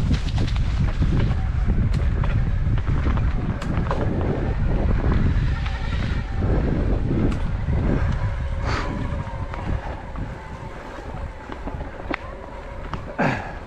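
Wind buffeting the microphone over the rumble and rattle of a bike riding down a rough trail, with scattered clicks and knocks. Two brief squeals, about nine and thirteen seconds in, as the noise eases off toward the end.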